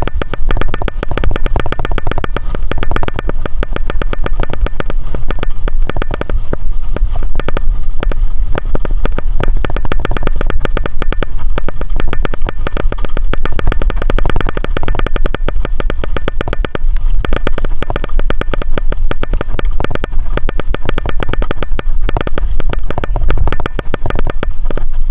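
A fast, continuous rattle of clicks over a steady low wind rumble while riding: the noise that turned out to come from a hydration pack's drinking tube knocking.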